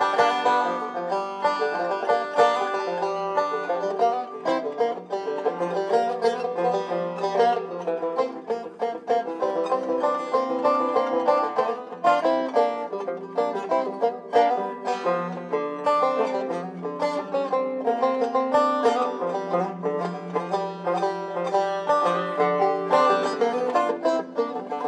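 Bluegrass banjo played solo, a steady run of fast picked notes.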